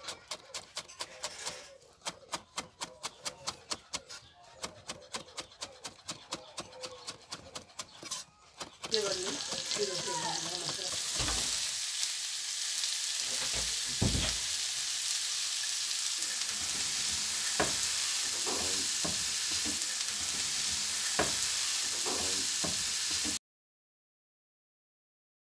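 Chef's knife chopping chives on a wooden chopping board in quick, even cuts, about four a second, for about eight seconds. Then sliced onions sizzle steadily in butter in a frying pan, stirred with a silicone spatula, with a few low knocks. The sizzling cuts off suddenly near the end.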